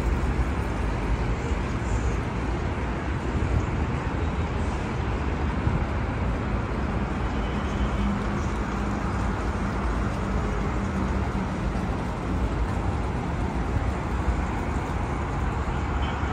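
Steady road traffic noise, a continuous low rumble of vehicles, with a faint engine hum in the middle.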